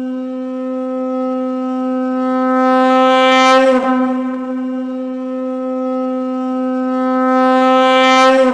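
Conch shell (shankh) blown in two long blasts at one steady pitch. Each blast swells louder and brighter toward its end, and the second begins a little under four seconds in.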